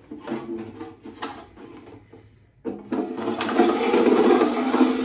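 Rubber prop shoes being worked down over the metal poles of an animatronic stand, rubbing and squeaking against the metal. It is louder and denser from a little after the middle on, after a short pause.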